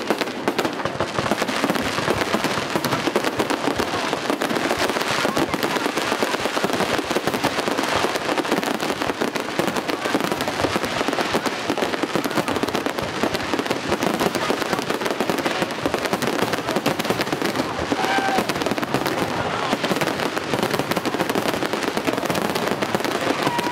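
Aerial fireworks display in a dense, continuous barrage: shells bursting and crackling so close together that the bangs run into one another, with no pause.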